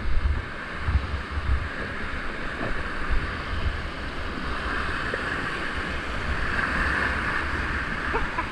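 Rushing whitewater of high-flowing creek rapids, a steady loud hiss, with gusts of low rumble on the microphone.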